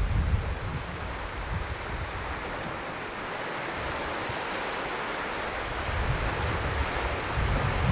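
Sea waves washing on the shore, a broad hiss that swells and eases through the middle. Wind buffets the microphone with low rumbles near the start and again near the end.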